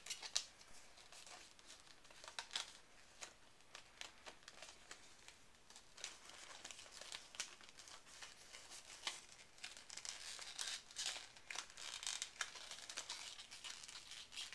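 Product packaging being handled and pried at: crinkling and crackling with irregular sharp clicks and snaps, busier in the second half.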